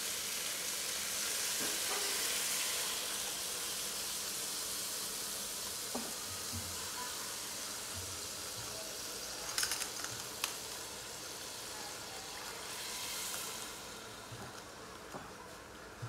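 Meat sizzling in a steel pot on a portable gas stove, a steady hiss that fades near the end, with a few sharp clicks about ten seconds in.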